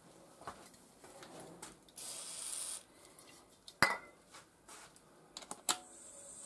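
Light metallic clicks and clinks of metal tools and parts being handled at a milling machine, with a brief hiss about two seconds in and one sharp click near four seconds in.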